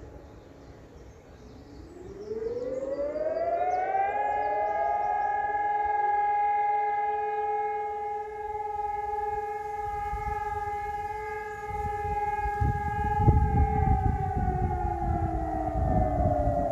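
A siren winding up in pitch over about two seconds, holding a steady two-note tone, then slowly winding down near the end. A low rumble builds under it in the second half.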